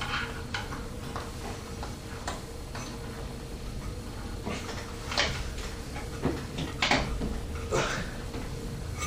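Scattered light clicks and knocks of hands working the Corsair H100 pump block's mounting hardware onto the CPU socket, securing one side of the cooler.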